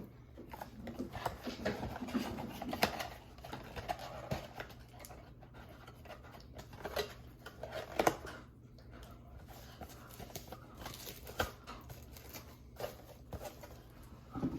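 Trading cards and their packaging being handled and tidied on a table: scattered light taps and clicks with soft rustling between them.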